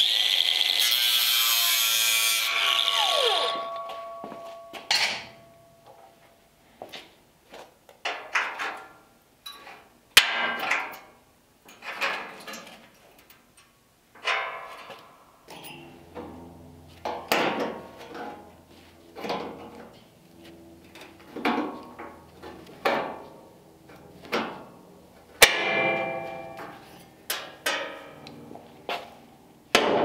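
Power drill running for about three seconds, then spinning down, boring through the sheet-metal inner door structure. After that comes a long run of short, irregular knocks and scrapes from hand work on the metal.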